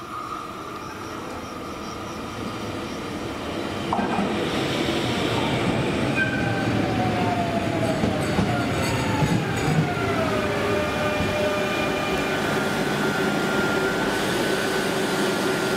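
CP series 2240 electric multiple unit running into the platform and slowing. The running noise of its wheels grows about four seconds in, a whine falls in pitch as the train slows, then settles to a steady hum.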